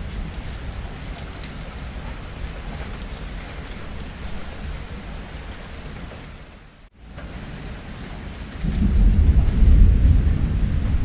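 Steady rain with thunder rumbling low. About two-thirds of the way through the sound briefly fades almost to nothing. It then comes back, and a louder, deeper roll of thunder swells near the end.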